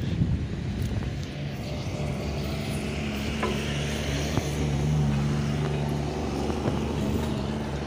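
A heavy engine running steadily with an even low drone, with a few faint clicks and knocks over it.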